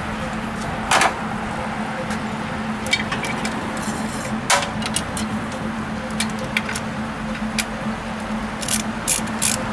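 Sharp metallic clicks and knocks, single ones about a second and four and a half seconds in and a quick run of them near the end, over a steady low hum.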